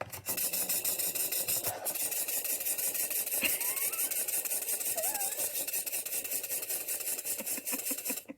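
Small plastic wind-up toy's clockwork spring motor running with a rapid, even ticking whir, then stopping abruptly near the end as the spring runs down.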